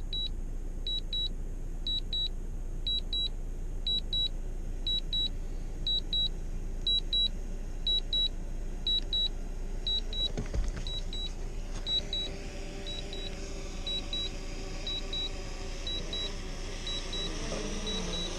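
Drone remote controller beeping in quick pairs about once a second, a low-battery alert as the aircraft is brought in to land. From about twelve seconds in, the drone's propeller hum grows as it descends close by, and there is a single knock about ten seconds in.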